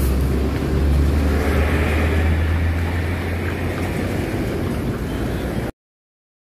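Heavy diesel tractor unit pulling a flatbed semi-trailer away: a steady low engine rumble with road noise, growing a little fainter as it moves off, then cutting off suddenly near the end.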